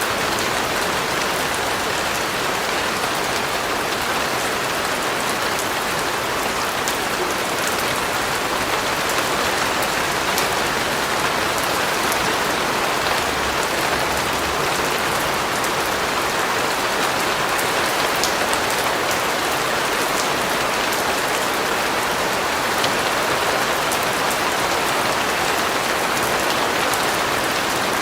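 Steady rain falling and pattering on a surface, an even hiss with scattered fine drop ticks and no change in intensity.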